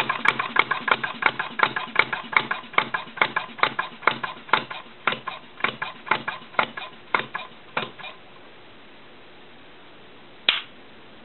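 RMC Type D non-compression gasoline engine running down to a stop: its sharp, regular beats get slower and further apart and die out about eight seconds in. A single sharp click comes near the end.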